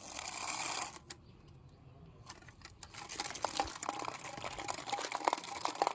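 A short burst of rustling hiss, then a run of small sharp clicks and crackles that come thicker and faster from about two seconds in.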